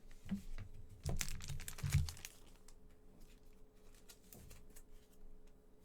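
Trading-card pack wrapper crinkling and tearing for about a second, starting about a second in, with light knocks as the pack is handled, then faint ticks of cards being handled.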